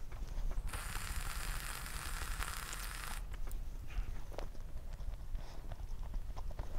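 A loud rustling noise of about two and a half seconds near the start, then small clicks as a bite of red velvet brownie is taken and chewed, close to a lapel microphone.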